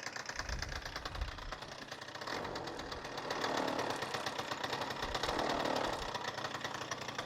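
Suzuki Address 110's two-stroke single-cylinder engine running with a rapid, even rattling knock, which the mechanic places on the magneto (flywheel) side. The engine is revved up twice, around three and five seconds in. It is a strange, unpleasant knock of unknown cause.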